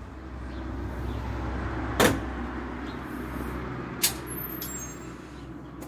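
A car passing on the street, its low rumble swelling and then slowly fading. Two sharp clicks come about two seconds apart, the first the loudest sound.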